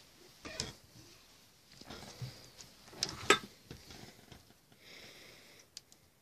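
Two-week-old Basenji puppies snuffling and squirming while their mother licks them clean, a run of irregular small sniffs and rustles. There is a sharp knock a little over three seconds in and a brief high-pitched sound about five seconds in.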